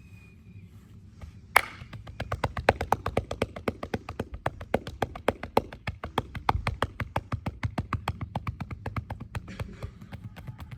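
Hands striking a person's body in a percussive massage: one sharp, loud strike about one and a half seconds in, then a quick, even run of strikes at about seven a second that stops shortly before the end.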